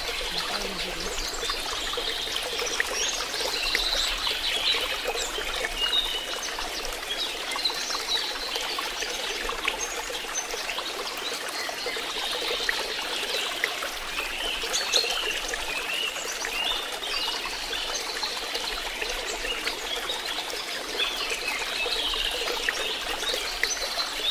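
Water trickling steadily, with small birds chirping busily over it.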